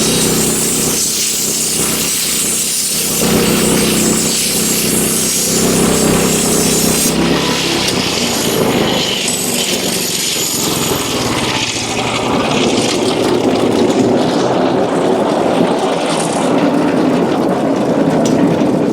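Wood-Mizer LX25 portable band sawmill running under load, its engine humming steadily while the band blade saws through a hemlock beam. About seven seconds in, the bright high hiss drops away and the sound turns lower and rougher.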